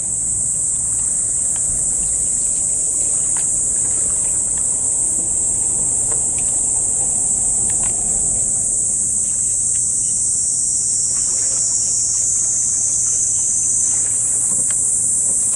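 Insects buzzing in a steady, high-pitched chorus.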